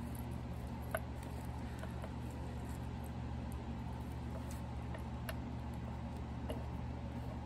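Faint, scattered small clicks and light rustles of small items and packaging being handled, over a steady low hum.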